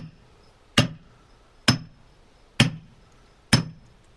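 A splitting maul tapping steel wedges set in an oak log: four or five sharp metallic clinks at an even pace, a little under one a second, each ringing briefly. These are light strokes to set the wedges in before hitting hard.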